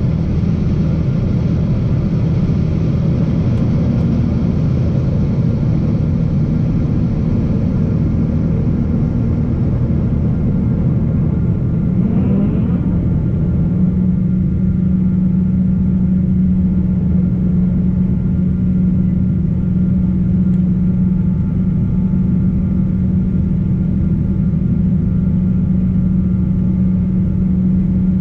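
Boeing 777-200 jet engines and airflow heard from aboard the airliner as a loud, steady rumble. About twelve seconds in, a brief rising tone sounds. After it a steady low hum settles in and the hiss above it thins out.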